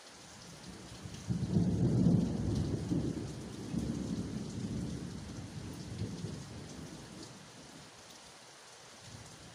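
Steady rain with a long roll of thunder: a deep rumble breaks in about a second in, is loudest just after, and rolls away in several swells over the next five seconds before the rain is left alone again.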